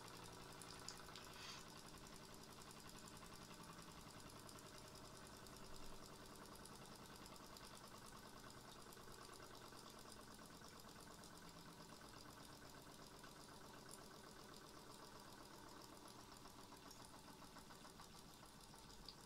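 Small scratch-built V-twin model steam engine with 8 × 10 mm cylinders running steadily on steam: a faint, fast, even mechanical beat.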